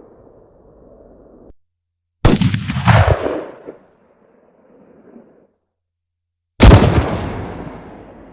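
Two rifle shots about four seconds apart. Each is a sharp report followed by a reverberating tail that dies away, the first with a second loud peak about half a second after it.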